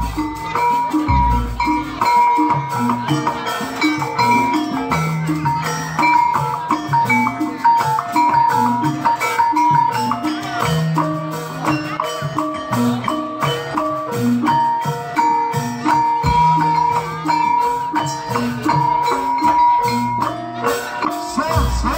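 Live Javanese jaranan gamelan music: tuned metal percussion plays repeating notes over steady drum and gong strokes, while a high melody line holds long steady notes.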